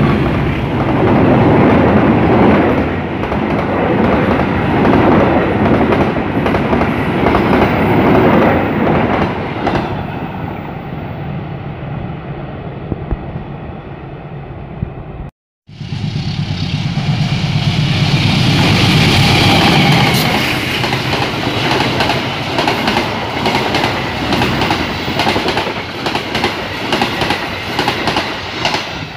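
Passenger trains passing close by on the track. The first one passes and gradually fades. After an abrupt cut about halfway through, another passes close and loud.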